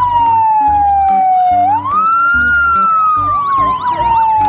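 Fire engine siren: a slow wail that falls, rises again about two seconds in, then falls once more, layered with a fast warbling yelp.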